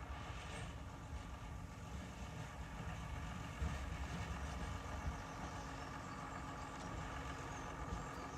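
Hunslet Wagonmaster narrow-gauge diesel locomotive engine running steadily with a low rumble.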